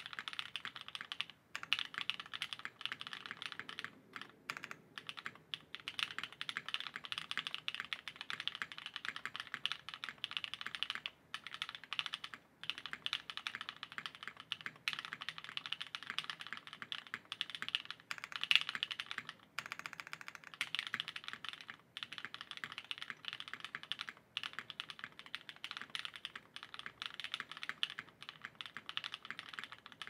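Fast, continuous typing on a Daal custom mechanical keyboard with lubed, filmed Gateron Cream Soda switches, o-ring mounted, with GMK keycaps. A dense run of keystrokes is broken by a few brief pauses, with one louder stroke a little past halfway.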